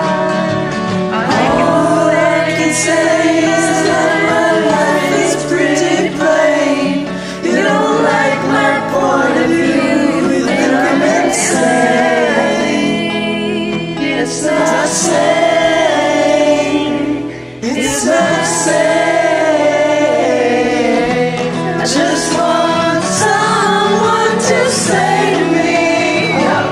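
Music: layered sustained singing over an accompaniment, with no words the recogniser could make out.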